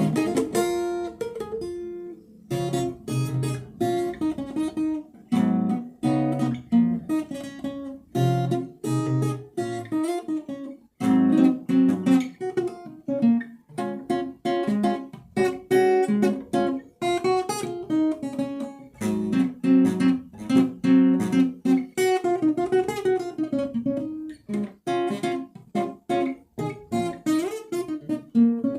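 Acoustic guitar being played, plucked and strummed chords in a continuous rhythmic run with brief breaks between phrases.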